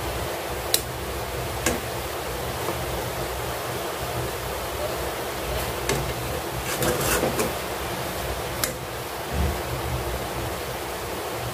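Steady hiss and low hum, with a few sharp clicks of a cooking spoon against the pan as sweet vermicelli is stirred: single clicks about a second in and again near the end, and a quick cluster a little past the middle.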